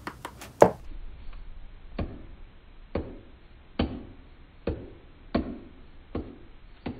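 Makeup brush tapping against an eyeshadow palette: a few quick taps in the first second, then a sharp tap roughly every second.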